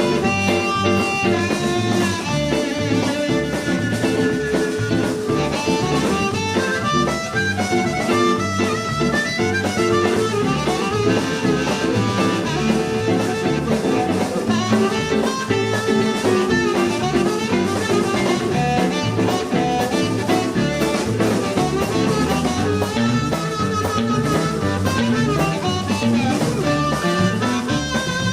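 Live blues band playing an instrumental passage with no singing: guitar and drum kit over a repeating bass line, at a steady tempo.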